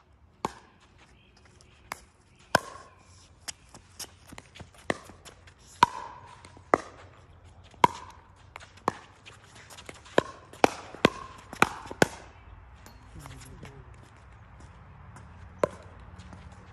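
Pickleball rally: paddles striking a hollow plastic pickleball back and forth, a quick irregular series of sharp pops that stops about twelve seconds in.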